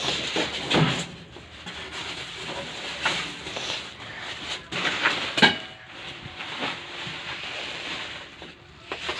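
Irregular knocks, clatters and rustling of things being handled and unpacked, with one sharp click about five and a half seconds in.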